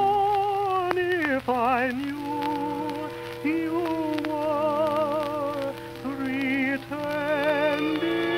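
Old Vitaphone-era song recording playing. Held chords give way about a second in to falling notes with strong vibrato, then a new melody with vibrato, over a light crackle of old disc surface noise.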